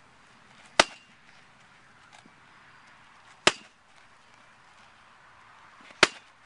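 A heavy wooden stake swung two-handed strikes a punching bag wrapped in carpet and duct tape: three sharp whacks, about two and a half seconds apart.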